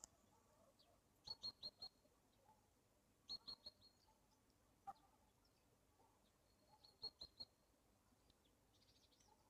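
Faint bird chirping: three quick runs of about four short, high chirps each, spaced a few seconds apart.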